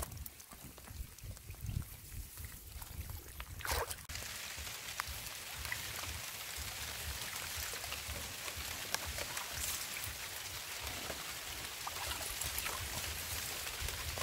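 Water splashing with low knocks for the first few seconds, then, from about four seconds in, steady rain falling on shallow flooded-field water and wet leaves.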